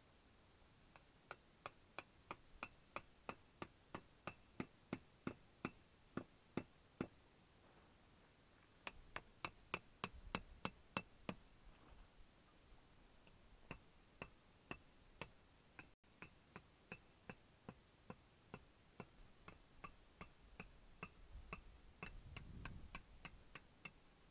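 Tent pegs being hammered in: runs of sharp, ringing metallic taps about three a second, broken by short pauses between pegs.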